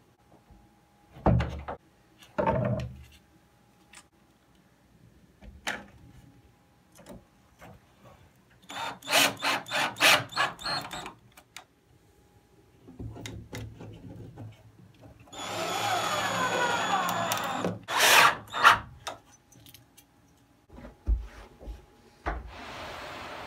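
Knocks, thumps and scraping from the wooden infrared sauna's roof and panels as they are shifted to square the roof: two heavy thumps near the start, a quick run of sharp knocks about nine seconds in, then a few seconds of creaking, scraping wood ending in more knocks.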